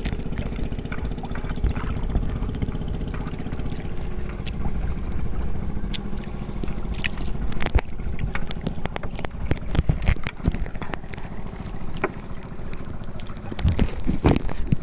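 Small engine of a motorized outrigger boat running steadily as the boat moves over the sea, with water splashing and knocking against the hull and floats, louder near the end.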